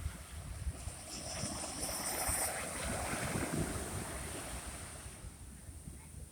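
Sea waves breaking and washing on the shore: one wave swells about a second in and fades out over the next few seconds, with wind buffeting the microphone.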